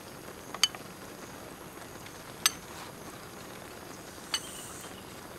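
Eating utensils clinking against bowls and a metal wok: three short sharp clinks, a little under two seconds apart, over a faint steady hiss.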